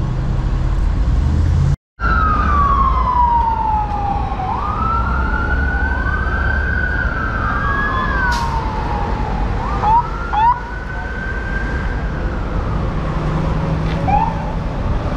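Emergency vehicle siren wailing in slow sweeps up and down in pitch, at times two wails overlapping, with two short loud chirps about ten seconds in, over steady road traffic. It starts just after a brief break about two seconds in.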